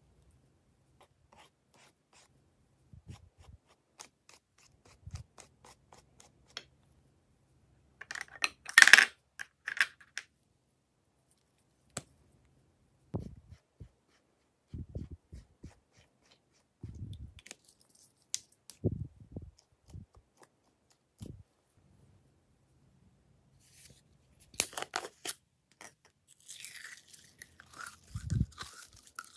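Slime being squished, stretched and pressed by hand in a glass dish: scattered sticky clicks and soft squelches, with a loud crackling burst about nine seconds in and a run of crackles near the end as green slime pours out of a jar.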